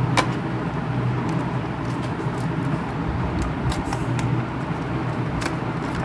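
Steady low background rumble, with a few faint clicks and taps as a small cardboard RAM box is handled and opened.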